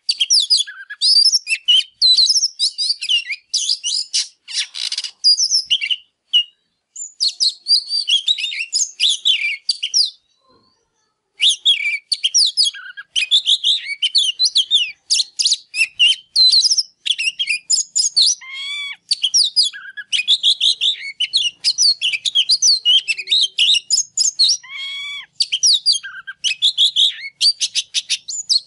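Oriental magpie-robin singing hard: a fast, varied run of sweet whistles, slurred notes and harsh chattering phrases, with a short pause about ten seconds in. It is a cock bird in full, fired-up song.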